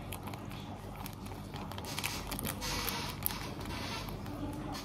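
Light rustling and scattered small clicks from handling seasoning sachets and utensils, busiest about halfway through.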